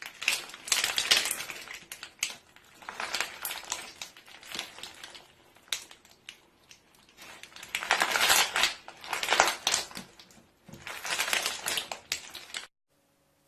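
Slime being squeezed and pressed by hand, crackling and popping in waves of fine clicks. The sound cuts off suddenly near the end.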